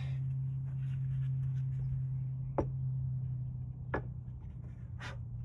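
Three light clicks of parts being handled, over a steady low hum.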